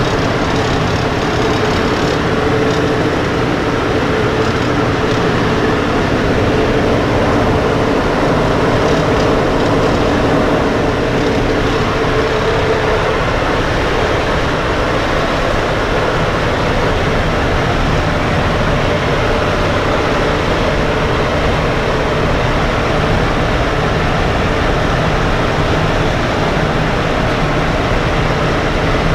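Wright R-1820 Cyclone radial engines of a B-17G bomber running steadily, heard as a loud, unbroken drone from inside the bare-metal fuselage.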